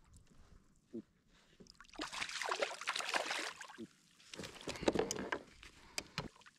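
Water splashing as a hooked gurnard thrashes at the surface beside a kayak, in two bouts of splashing, about two seconds in and again about five seconds in.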